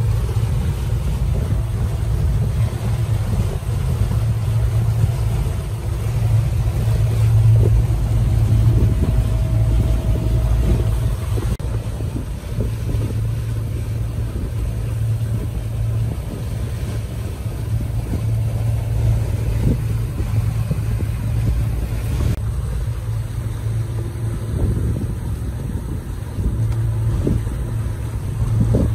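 A motorboat's engine running steadily, a low continuous hum.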